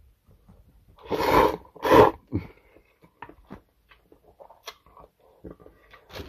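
A man eating spaghetti lets out two loud, harsh bursts of breath through the mouth about a second apart, then chews quietly with a few soft clicks and smacks.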